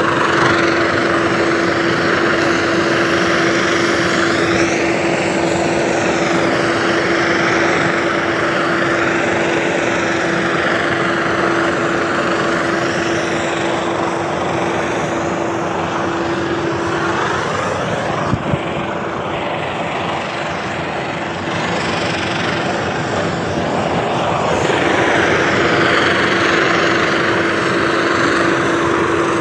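Engine-driven high-pressure washer running steadily while washing down a tanker ship, with a steady hum over a broad hiss of spraying water that rises and falls. The hum drops out for several seconds past the middle, then returns.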